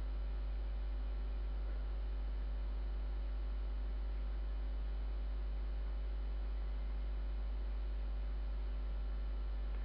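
Steady low electrical hum, unchanging throughout, with no other sounds over it.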